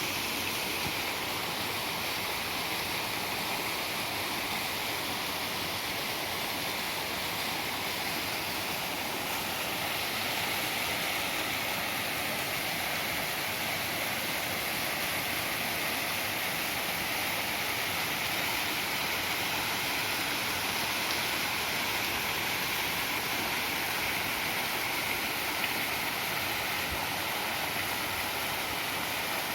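Waterfall rushing steadily, a constant wash of falling water.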